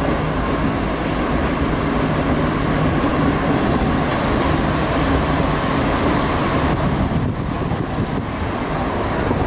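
A train running, a steady rumble with a low, even hum.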